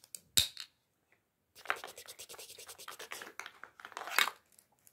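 Close handling noise of plastic toys: one sharp click about half a second in, then a dense run of small scratchy clicks and rustling from about a second and a half in, loudest just before the end.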